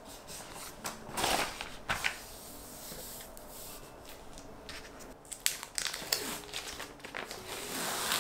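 Plastic photo-album pages and clear film sleeves rustling and crinkling as they are turned and handled, with a few short clicks; the loudest rustles come about one and two seconds in.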